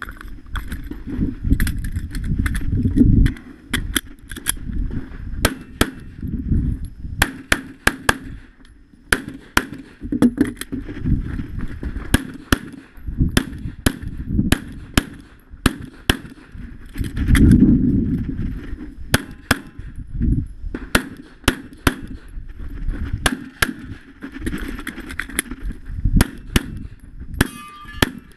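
Semi-automatic pistol fired dozens of times in quick pairs and strings through a practical-shooting stage, with low rumbling noise between the shots.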